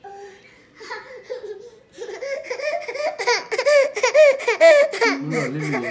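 Baby vocalising loudly in rapid, rhythmic high-pitched bursts, about five a second, starting about two seconds in, somewhere between laughing and fussing; a lower voice joins briefly near the end.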